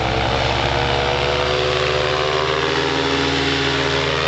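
Piston-engined propeller plane passing low and close, its engine running loud, with the engine note rising at first and then holding steady.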